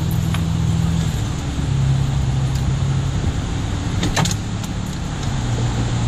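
Inside a moving car at highway speed: steady engine and tyre hum. A short burst of clicks comes about four seconds in.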